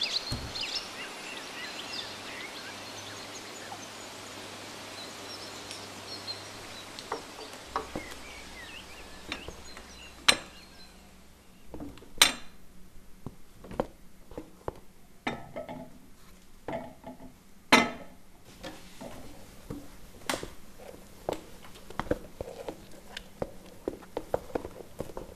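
Quiet evening outdoor ambience with birds chirping. After about ten seconds it gives way to scattered sharp clinks and knocks of dishes and cutlery, a few of them loud.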